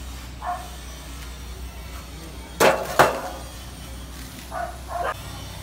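Two sharp metal knocks about half a second apart, from a galvanized sheet-metal grill frame being handled on a wooden workbench, over a low steady hum.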